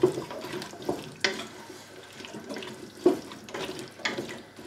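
Wooden spoon stirring wet diced potatoes, onion and bacon in a little water in a stainless steel stock pot, with a sloshing, wet churn and several sharp knocks of the spoon against the pot.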